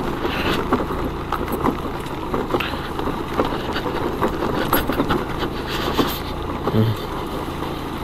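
Suzuki Access 125 scooter's single-cylinder engine running steadily at low speed over a rough, rocky track, with many small rattles and knocks from the bumpy ride.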